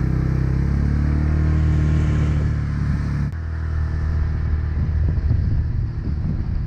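Engine of a Kubota utility buggy running as it drives along, a steady drone that turns into a rougher, uneven rumble about three seconds in.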